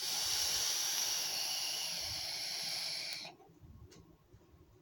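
A long drag on a vape: a steady airy hiss of air being drawn through the device, lasting about three seconds and then cutting off.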